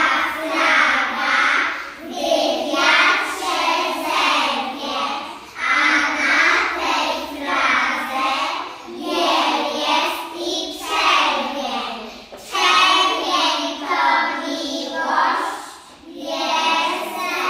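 A group of preschool children singing together in unison, in sung phrases of a few seconds each with short breaths between them.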